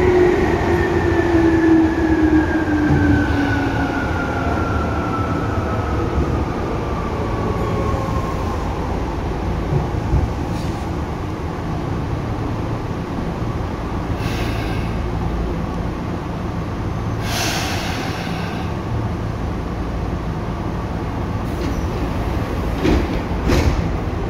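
Tokyu 8500 series train's Hitachi traction motors whining under the car floor, the whine falling in pitch as the train slows and fading out after several seconds. A steady running rumble of wheels on rail follows, with two brief hisses near the middle.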